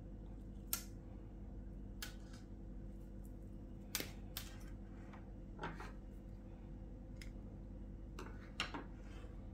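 Several light, scattered clicks and taps of hands handling fishing line and small tackle on a wooden table, over a steady low hum.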